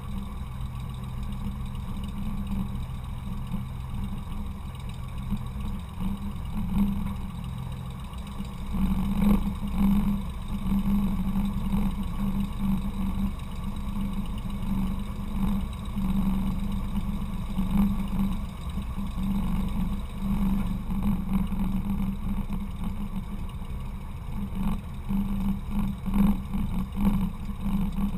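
Cessna 172's piston engine and propeller running at low taxi power, the engine note swelling and easing a little, with a few brief knocks from the wing-mounted camera.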